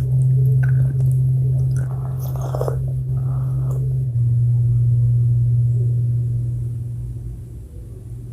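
Close-miked chewing with small wet mouth clicks, loudest about two to three seconds in, over a steady low hum.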